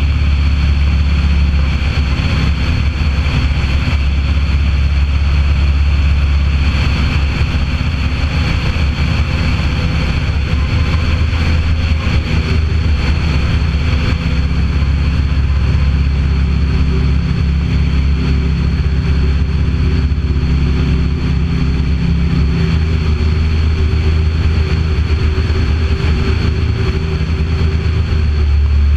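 Ultralight aircraft's engine and propeller running steadily in flight, a loud, even drone with air rushing past the microphone.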